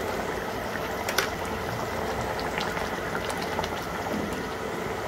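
Boal fish curry in mustard gravy simmering in a pan, bubbling steadily, with a few light clicks.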